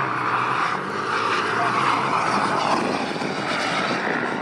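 JetCat 160 model gas turbine of a Skygate Hawk RC jet running in flight: a steady jet roar and rush of exhaust, strongest in the mid range.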